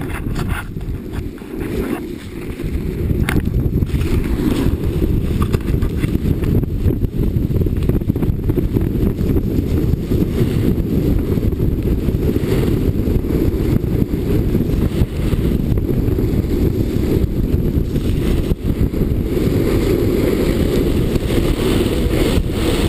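Wind buffeting the microphone of a pole-mounted action camera as a snowboard runs fast through deep powder: a loud, steady, low rumble with a fainter hiss of snow, growing louder about three seconds in.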